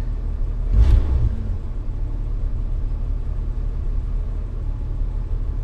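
1974 Plymouth Valiant engine idling steadily while it warms up after a long-dormant cold start, heard from inside the car, with a brief louder swell about a second in.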